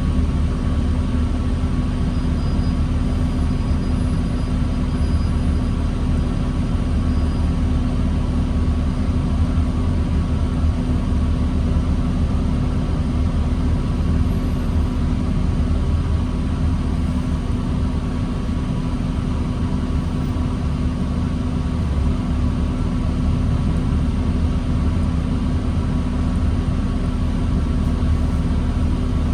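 New Flyer D40LFR diesel transit bus running steadily, heard from inside the bus: a constant low engine drone with a steady whine above it, no revving.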